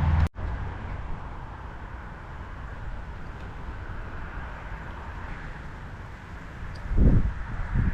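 Road traffic: a vehicle's engine hum cuts off abruptly just after the start, then a steady wash of traffic noise. Low rumbles of wind on the microphone come in near the end.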